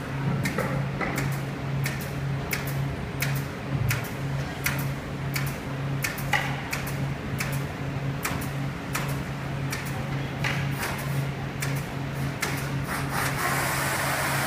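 Pneumatic staple gun firing staples into a sofa's wooden frame during upholstery: a sharp shot about every half second, stopping shortly before the end, over a steady low factory hum.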